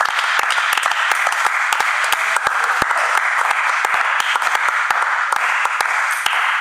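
A crowd of spectators applauding: dense, steady clapping that stops abruptly at the very end.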